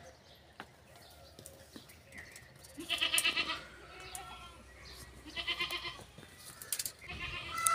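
A farm animal bleating twice, once about three seconds in and again about two seconds later, each call short and wavering.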